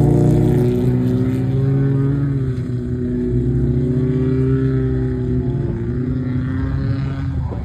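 Folkrace cars racing around the track: a steady engine drone whose pitch drifts slowly up and down as the drivers accelerate and lift.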